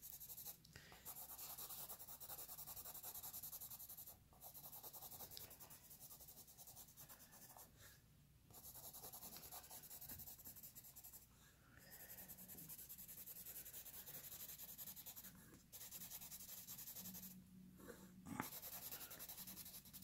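Colored pencil scribbling loosely on paper: faint scratchy strokes in stretches of a few seconds, broken by short pauses.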